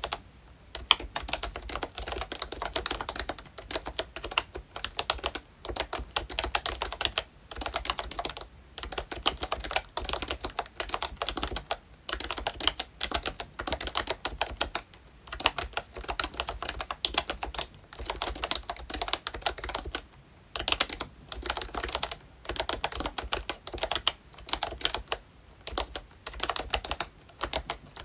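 Typing on a ROYCHE Disney Mickey Mouse retro membrane keyboard with round typewriter-style keycaps: dense runs of key clicks broken by short pauses every few seconds.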